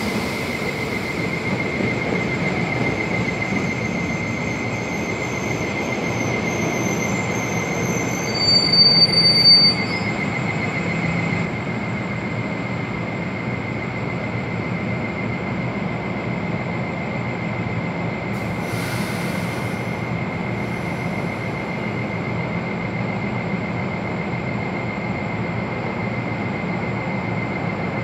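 NJ Transit bi-level commuter coaches rolling into the platform and braking for a station stop, with a steady rumble of wheels on rail. A high steady squeal from the wheels and brakes stops about eleven seconds in, with a sharper, louder squeal just before it; a brief hiss comes about two-thirds of the way through.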